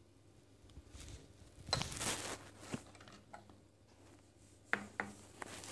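A glass shot cup being handled on an espresso machine's metal drip-tray grate: a short scraping rub about two seconds in, then a few sharp clicks and taps near the end.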